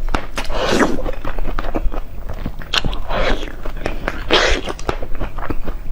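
Close-miked biting and wet chewing of food: many small clicks and smacks, with a few longer, louder squelching bites about a second in, around three seconds and past four seconds.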